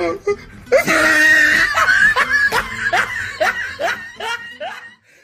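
A person bursts into loud laughter, a run of short rising 'ha' pulses about two or three a second, which cuts off abruptly near the end.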